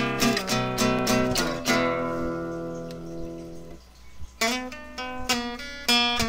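Background music of strummed guitar. A chord is left ringing and fading away, then the strumming starts again about four seconds in.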